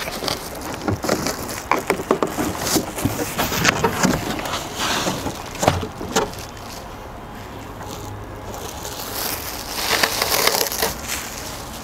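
Plastic packaging crinkling and crackling irregularly as a wrapped RC car is handled and lifted out of its cardboard box, with a longer rustle of the plastic being pulled off about ten seconds in.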